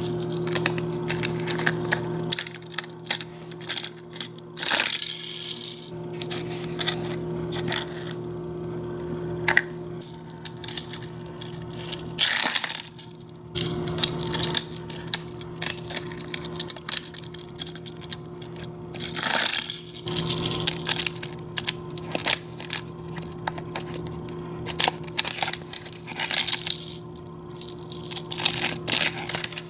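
Hard plastic toy pieces clicking, knocking and clattering as a Hot Wheels playset and its die-cast car are handled, with a few louder rattling bursts. A low steady hum comes and goes underneath.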